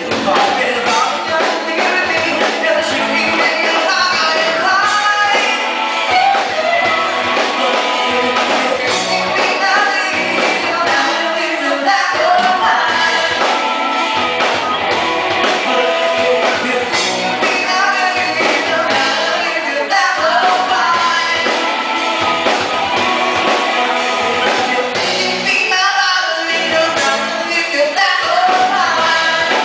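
Live band playing a song with sung vocals over percussion (timbales, congas, drum kit) and electric guitar.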